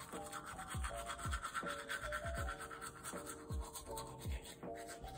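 Toothbrush scrubbing teeth, a rapid scratchy brushing, over background music with a steady beat and bass notes that slide down in pitch.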